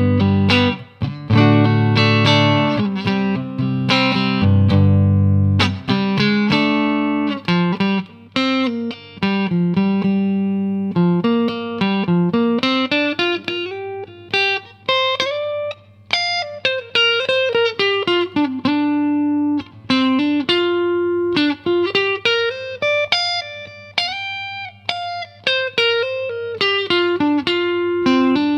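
Fender 50th Anniversary American Deluxe Stratocaster electric guitar being played: full chords ringing for the first few seconds, then single-note melodic lines with some bent notes.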